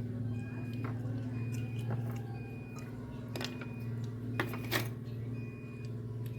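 Eating sounds while working through a meal of rice-field snails: a few short sharp clicks and smacks, the loudest a little after four and near five seconds in, over a steady low hum. A faint short high tone repeats about once a second.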